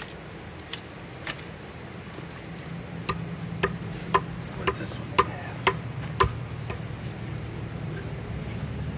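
A run of seven sharp knocks, about two a second, starting about three seconds in, over a steady low hum.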